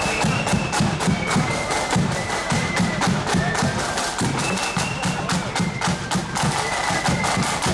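Marching band playing on parade: rapid snare drum beats and rolls over a pounding bass drum, with a high, thin wind melody of held notes.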